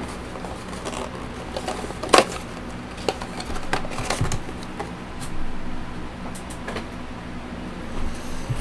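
Foil-wrapped trading card packs and their box being handled: scattered crinkles and small clicks, with one sharper tap about two seconds in, over a steady low hum.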